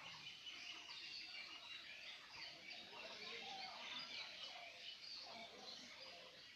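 Faint chorus of several small birds chirping and singing at once, many short overlapping calls throughout.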